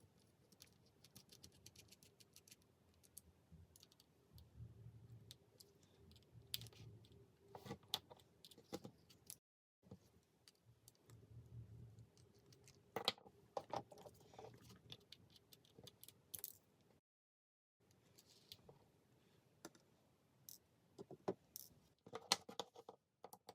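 Faint, irregular small clicks and scrapes of a precision screwdriver working on the tiny screws inside an iPod nano 5th generation.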